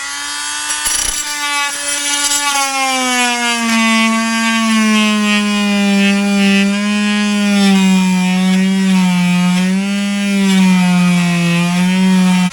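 Fein MultiMaster oscillating multi-tool cutting into rotten wood in a door jamb, running with a steady buzzing whine. About four seconds in, the pitch drops and then wavers as the blade bites under load.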